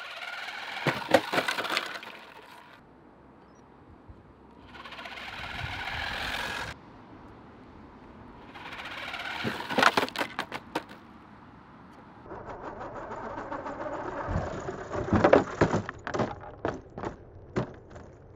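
Electric motor of a 1/10-scale RC car whining as it speeds up, in four separate runs. Three of the runs end in a clatter of hard knocks as the plastic car hits the ramp and lands. The last crash knocks a wheel off.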